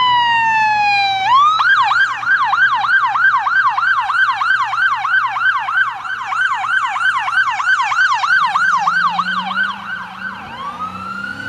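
Electronic police siren: a falling wail, then a fast yelp sweeping up about three times a second, and near the end a slow rising wail begins.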